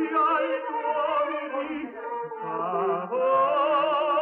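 Operatic singing: a voice holding long notes with a wavering vibrato, moving to new notes about two and three seconds in.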